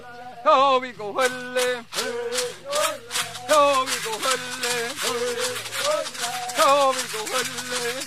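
Background music: a wavering, pitched melody over a shaker rattle that keeps a steady beat.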